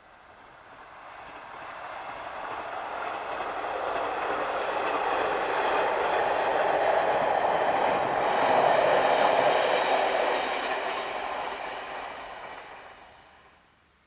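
Two-car JR KiHa 40-series diesel railcar running past on the line. It grows louder as it approaches, is loudest about nine seconds in, then fades and cuts off near the end.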